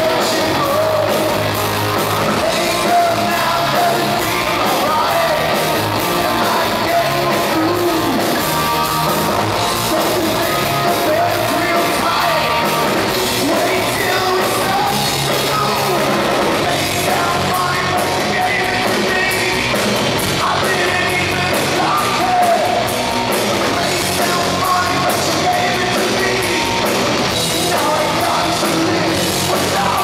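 Progressive metal band playing live on stage, with electric guitar, bass guitar and a full drum kit together, loud and steady.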